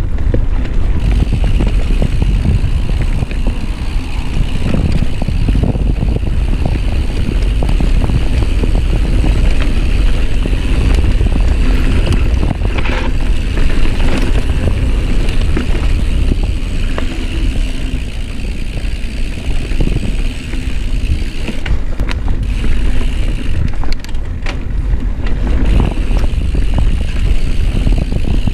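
Mountain bike rolling fast over a dirt singletrack: continuous rumble and rattle of tyres and frame, with wind buffeting the chest-mounted camera's microphone and a few sharp knocks from bumps.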